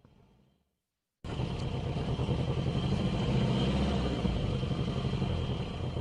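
Silence for about a second, then a steady vehicle rumble with a hiss starts abruptly.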